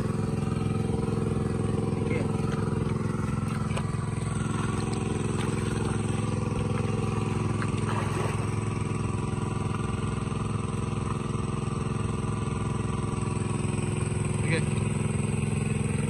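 Small engine-driven water pump running steadily, pumping water out of the pond; its pitch and level stay constant.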